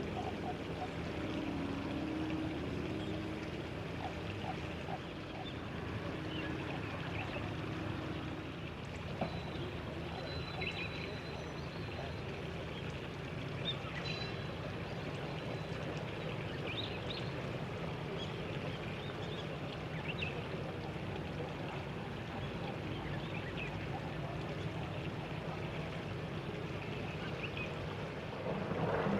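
Thin, faint song of a Japanese bush warbler (uguisu), short high phrases every few seconds over a steady background hiss of water. Low frog calls come in the first few seconds.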